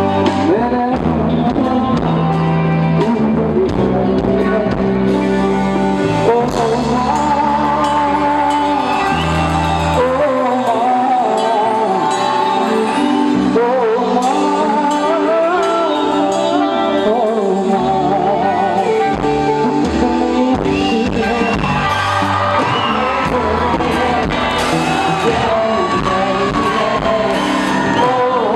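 Male singer singing a song live with a band that includes electric guitar and drums. The bass drops away about ten seconds in and comes back near the middle, while the singing carries on.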